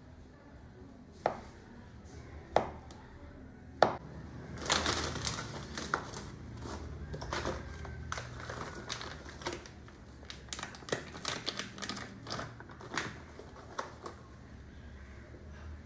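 Irregular light taps and clicks of handling objects: three sharp knocks spaced over the first four seconds, then a brief rustle and a denser, uneven run of taps that thins out near the end.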